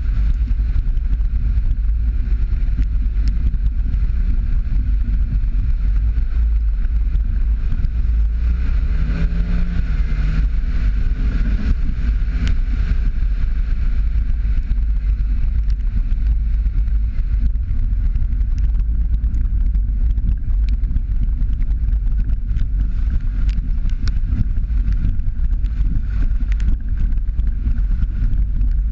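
Steady low rumble of wind buffeting and road noise from a vehicle driving a wet gravel dirt road, picked up by an outside-mounted camera, with scattered faint ticks and a brief faint pitched sound about nine seconds in.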